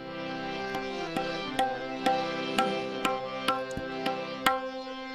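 Instrumental opening of a bhajan: a harmonium holds a steady chord while a tabla strikes about twice a second.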